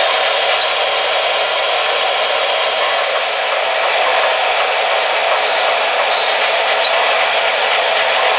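Steady airy hiss from idling O-gauge model locomotives with their smoke units running.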